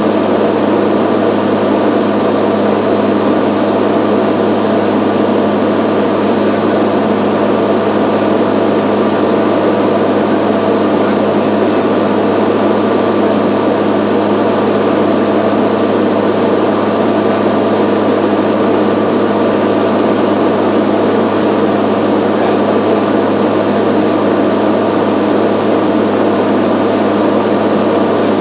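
Small tour plane's propeller engine droning steadily in cruise flight: a constant low hum over a rushing noise, unchanging throughout.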